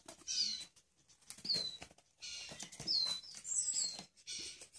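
Nestling birds giving short, high chirps that slide downward, about five in all, over rustling and light knocks from a bamboo basket of chicks on wood shavings being handled and set down.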